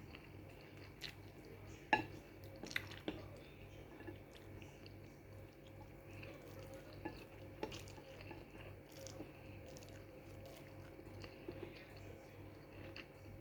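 Faint mouth sounds of chewing instant pancit canton noodles, with scattered sharp clicks of utensils against a dish, the loudest about two seconds in. A steady low hum runs underneath.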